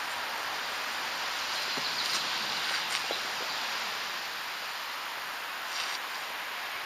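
Steady soft outdoor hiss, with a few light clicks and rustles of gear being handled about two to three seconds in and again near six seconds.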